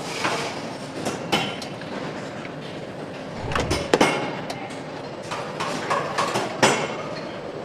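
Steady mechanical din of an engine assembly line with scattered metal clanks and knocks, the loudest about four seconds in and again near the end.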